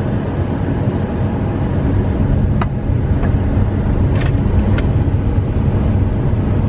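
Steady rumble of road and engine noise inside a moving car's cabin, with a few faint clicks in the middle.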